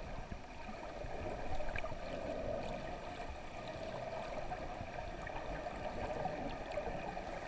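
Muffled underwater ambience picked up by a camera in a waterproof housing: a steady hiss of moving water with no distinct events.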